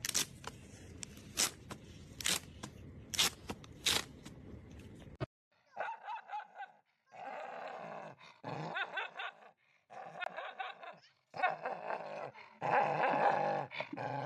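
Several sharp knocks or clicks over a low rustle, stopping abruptly about five seconds in. Then a dog vocalizes in a string of short pitched calls that grow louder near the end.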